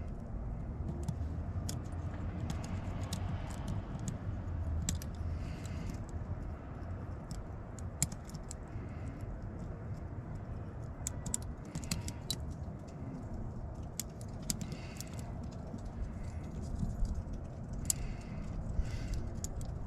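Scattered small metal clicks and light rattles of lock hardware being handled and fitted together, over a steady low hum.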